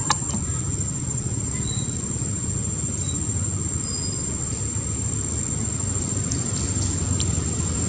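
Steady low background rumble, with a thin steady high whine over it, a short click at the start and a few brief faint high chirps.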